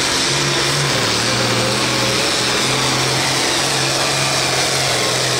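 International 1066 hot stock pulling tractor's engine running hard under load as it drags the weight sled down the track. The engine noise is loud and steady and holds its pitch.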